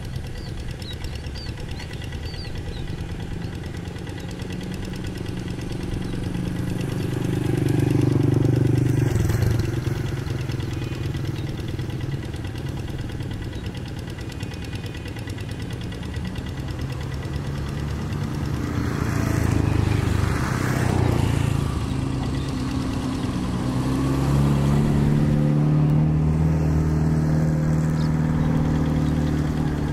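Single-cylinder diesel engine of a Quick two-wheel hand tractor running steadily as it works through a muddy rice paddy on cage wheels. It swells louder three times, about a third of the way in, about two-thirds in and near the end.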